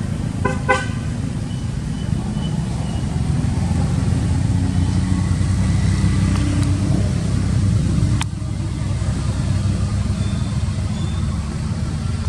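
Steady low rumble of a motor vehicle engine running. A few short high squeaks sound about half a second in, and a single sharp click comes about eight seconds in.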